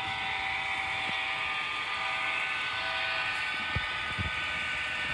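Steady whine and hum of model trains running on a layout, with a couple of soft knocks in the second half.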